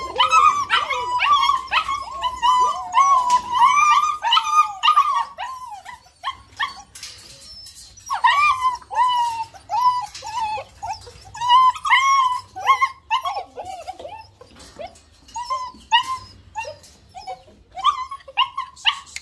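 German Shepherd puppies whining and yelping together, many short high-pitched calls overlapping. The calls ease off for a couple of seconds about a third of the way in, then start again, more scattered.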